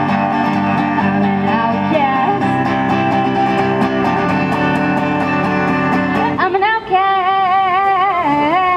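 Acoustic guitar strummed in a steady rhythm. About two-thirds of the way in, a woman's voice comes in over it with one long held note, wavering evenly with vibrato.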